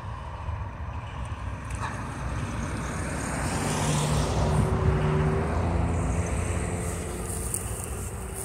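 Freight train of covered hopper cars rolling past: a steady low rumble of steel wheels on rail, swelling louder around the middle and easing off toward the end, with a faint steady whine.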